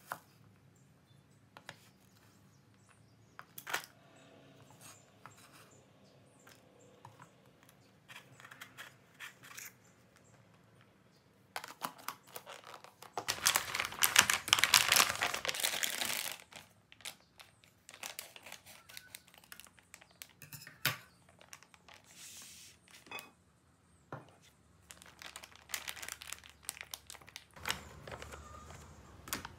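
A knife slicing shallots on a wooden cutting board, a few scattered knocks. About twelve seconds in comes a loud stretch of crinkling from a plastic bag of frozen mixed vegetables being handled. Near the end the bag rustles again and the vegetables are tipped into a ceramic ramekin.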